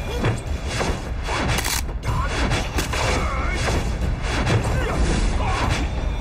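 Martial-arts fight sound effects: a rapid run of punch and swish hits, one after another, over background music.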